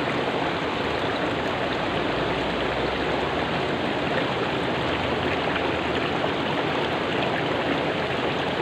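River water rushing steadily over rocks, an even continuous wash.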